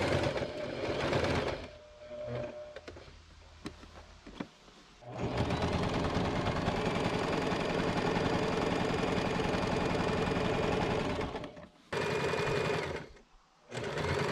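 Janome 2212 domestic sewing machine stitching fabric in several runs: a short burst at the start, a few brief stitches, then a long steady run of about six seconds, and two more short runs near the end.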